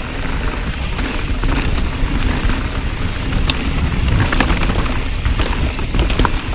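Mountain bike being ridden on a dirt trail: a steady low rumble of wind and tyre noise on the helmet or bike camera's microphone, with frequent light clicks and rattles from the bike.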